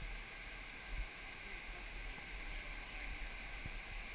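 Whitewater of a river rapid rushing steadily, with scattered low thumps on the microphone and a louder one about a second in.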